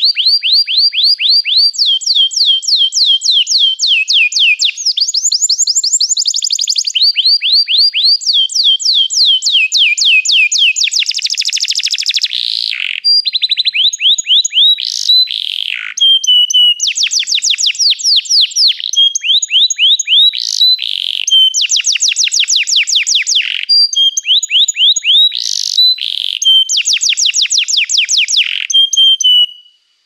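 Domestic canary singing a continuous, high-pitched song of rapid trills: runs of quickly repeated notes, each sliding down in pitch, grouped into phrases of a second or two that jump to a new pitch from one to the next, with a few sharper sweeping notes in the second half. The song cuts off suddenly at the very end.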